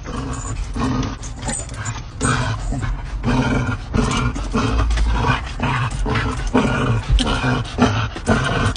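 A dog vocalizing excitedly, a long run of short pitched cries about two a second.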